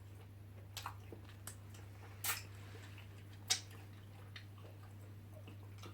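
Quiet eating sounds: a few short, wet mouth smacks and clicks, spaced irregularly, over a steady low hum.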